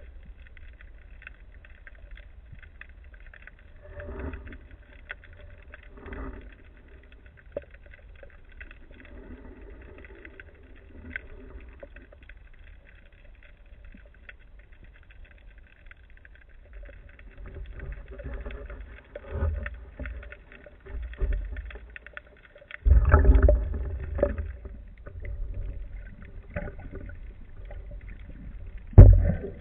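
Underwater sound through a camera housing: a faint low rumble of moving water with small clicks. Louder low rushes come around two-thirds of the way in, and the loudest, brief one just before the end.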